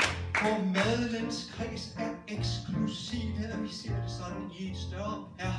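Music from a song number: a steady, repeating bass line under a wavering melody line.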